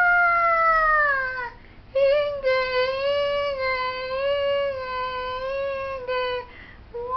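A high-pitched voice singing long, drawn-out notes, each held for a few seconds with slight wavering and short breaths between them.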